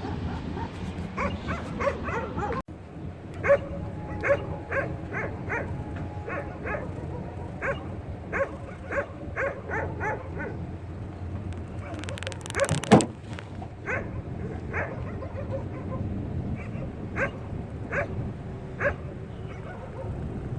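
A dog yipping and barking repeatedly in short calls, about two a second and irregular. A brief loud noise cuts in about two-thirds of the way through.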